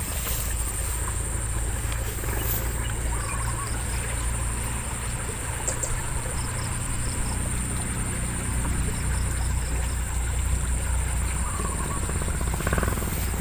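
Outdoor ambience: a steady low rumble with a constant thin high whine and a few faint, short high chirps.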